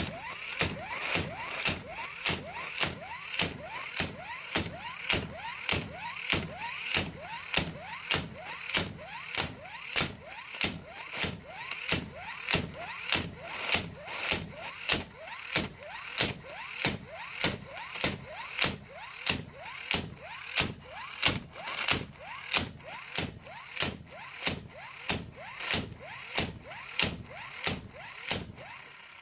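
A 12-volt M Plus cordless impact wrench hammering against a Skidmore-Wilhelm bolt tension tester, about two blows a second, with the motor's whine rising between each blow. The hammering stops at the end.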